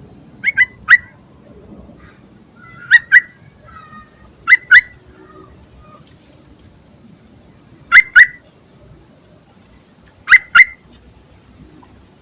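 Yellow-vented bulbul giving short, sharp call notes, mostly in quick pairs, repeated every couple of seconds: the call presented as that of a female, used to lure males.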